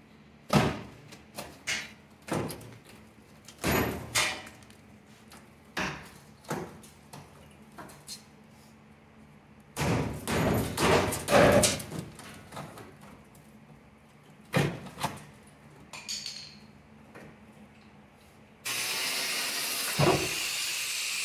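Irregular knocks and scrapes of hand tools on rusted-out sheet steel of a truck's cab floor and rocker panel. Near the end an angle grinder starts and runs steadily, cutting into the steel.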